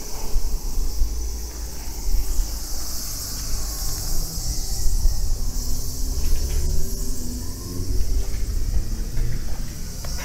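A steady, high-pitched chorus of insects over an uneven low rumble.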